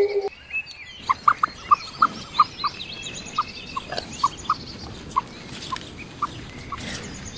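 Outdoor animal sounds: a run of short chirping calls, two or three a second, with fainter high twittering behind them. A long, loud, falling animal call cuts off just after the start.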